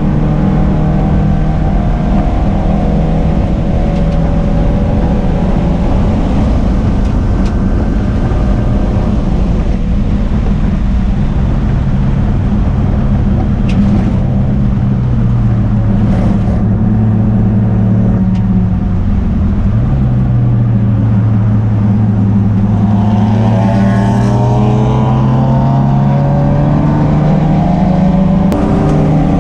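Race car engine running continuously on a road course, loud and steady under road and wind noise. Its pitch drops and climbs again a few times as it shifts and lifts, with a few short clicks in between.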